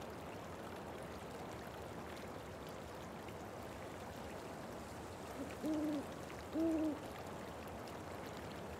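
An owl hooting twice, two short hoots about a second apart a little after halfway, over a faint steady hiss of night-time outdoor ambience.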